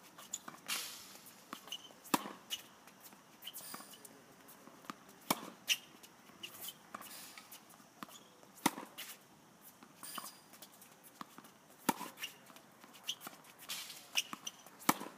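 Tennis balls struck by a racket and bouncing on a hard court: sharp pops at uneven intervals, one every few seconds, with shoe scuffs and footsteps between shots.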